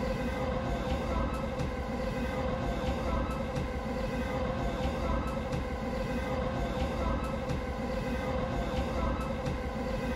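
Train running at speed, heard from inside the carriage: a steady low rumble with a constant hum, and faint clicks coming in pairs about every two seconds.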